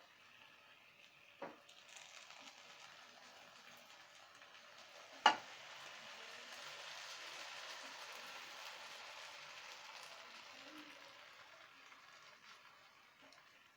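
Sugar syrup poured over a hot tray of freshly baked phyllo pastry, sizzling: a hiss that swells and then fades over several seconds, after a sharp clink about five seconds in.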